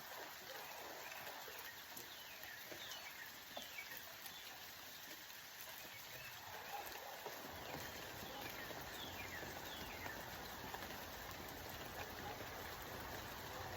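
Steady rain falling, with a bird's short falling whistled calls twice, and a low rumble that comes in about halfway through.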